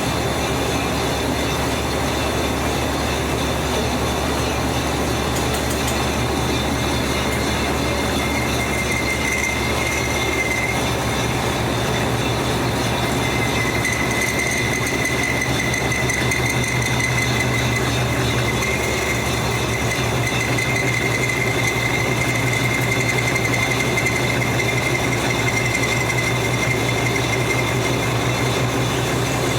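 Lathe running with a cutting tool turning a metal shaft: a steady machine hum, with a high whine from the cut that comes in about eight seconds in and holds from about thirteen seconds on.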